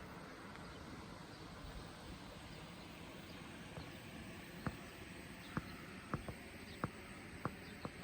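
Steady faint outdoor background hiss, with a series of sharp, irregular clicks starting about halfway through.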